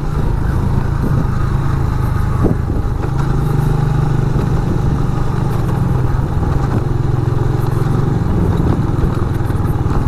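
Motorcycle engine running steadily, its note holding at a low, even pitch.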